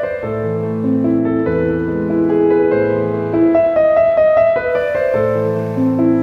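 Background music led by piano: a slow melody of held notes over sustained low chords.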